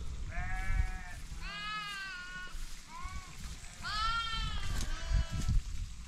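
Sheep bleating, about five calls in a row, some short and some held for about a second, over a low rumbling noise.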